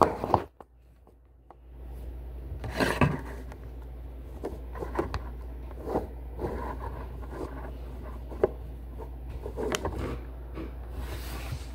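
Handling noise of a phone camera being moved and set up on a counter: rubbing, scraping and small knocks against the phone, with one louder scrape about three seconds in, over a low steady hum.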